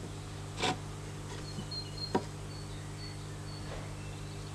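Home-made wooden bucksaw frame and its twisted paracord tensioner creaking and clicking as the tensioning stick is wound tighter: one short sound about half a second in and a sharper click about two seconds in. A steady low hum runs underneath, with a few faint high chirps.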